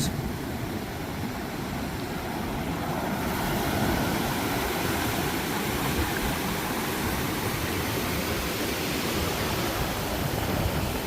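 Ocean surf washing steadily onto the shore, with wind rumbling on the microphone; the hiss of the surf grows a little brighter about three seconds in.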